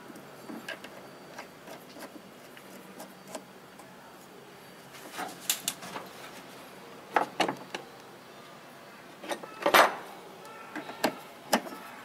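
Scattered sharp metal clicks and knocks as washing-machine spin-clutch parts are handled and the drive pulley is fitted back onto the shaft. They come in small pairs, the loudest about ten seconds in.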